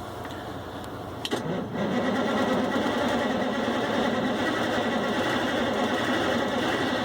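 Cummins VT-903 turbocharged V8 diesel starting: a sharp click about a second in, then the engine catches and settles into a steady run with a thin steady high whine. The engine is hard to start and won't run without throttle, which a Cummins tech put down to bad seals in the front of the fuel pump.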